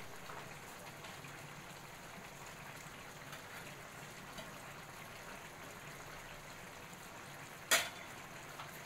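Pork and long beans in coconut milk simmering in a wok: a steady, fine bubbling and crackling as the sauce comes to the boil. A single short, sharp click near the end.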